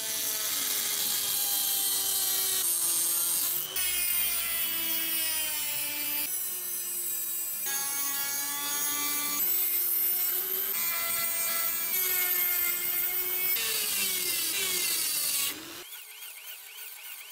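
High-speed rotary tool with a thin cut-off disc cutting grooves into a steel hammer head: a high whine with gritty hiss, its pitch jumping between pieces and sliding down when the disc bites. Near the end it gives way to a quieter, wavering whine as the rotary tool runs a small grinding bit over the metal.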